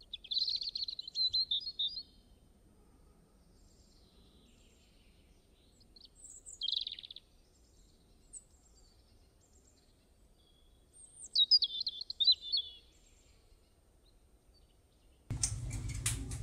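Small birds chirping and twittering in three short bursts of quick, high notes over a faint low background. Near the end, a louder clattering noise cuts in abruptly.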